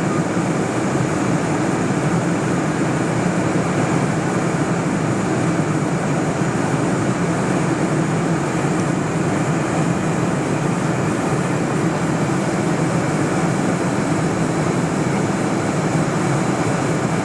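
Steady roar of a Boeing 747 in flight, heard from inside the cabin: engine and airflow noise holding an even level throughout.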